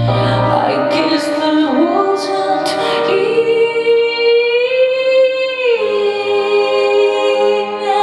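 Woman singing live over sustained electric-keyboard chords. About three seconds in she holds one long note with a slight upward bend, which stops a little before the last two seconds as the keyboard chord changes.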